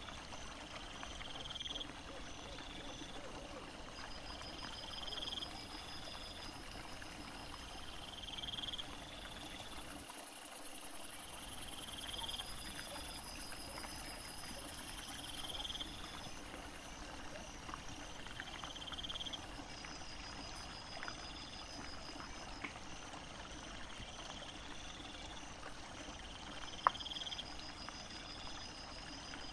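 Night insects chirping: a short rising chirp repeats about every two seconds over a faint steady hiss, with one sharp click near the end.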